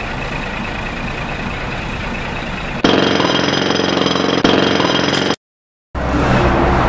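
Dubbed sound effects: a truck engine running steadily, then from about three seconds in a louder whining drill that stops abruptly. After a half-second break, another loud sound with a low rumble starts near the end.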